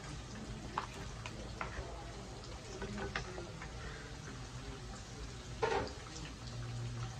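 Plastic ladle clicking and scraping against a bowl and a wok while small balls are tipped into simmering broth, with light splashes of liquid. The clicks come irregularly, with one louder scrape a little over halfway through, over a steady low hum.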